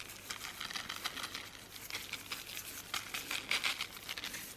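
Wrapping from butcher's meat being handled and unfolded, crinkling and crumpling in a run of irregular crackles, loudest about three and a half seconds in.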